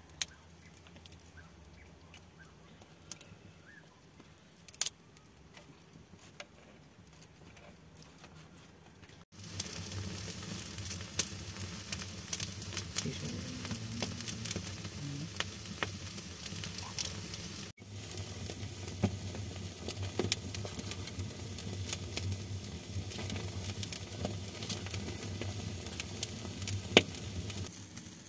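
Wood campfire crackling with chicken sizzling on skewers over it, with many sharp pops. Faint at first, it turns louder about nine seconds in.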